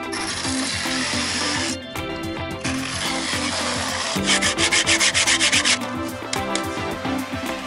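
Cordless jigsaw cutting a pine board in short rasping runs, with a brief pause between them. About four seconds in the cutting turns pulsing for a second and a half.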